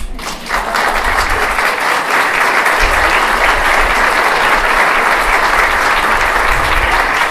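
An audience applauding: dense, steady clapping that breaks out suddenly.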